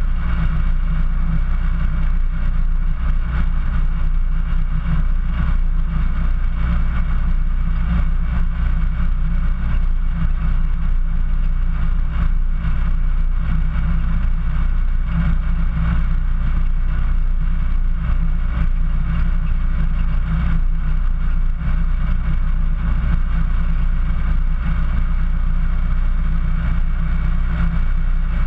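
A 4x4's engine running steadily at low revs as the vehicle crawls slowly through snow, heard from a camera mounted on its hood.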